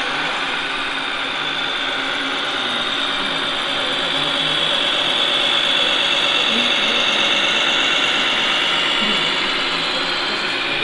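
Radio-controlled model MAN tipper truck's electric drive and gearbox whining as it drives across the dirt, getting louder in the middle as it comes close and easing off near the end.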